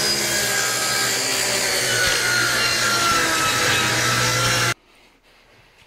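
Craftsman circular saw running and cutting through a plywood sheet, a steady motor whine over the rasp of the blade in the wood, which stops suddenly about a second before the end.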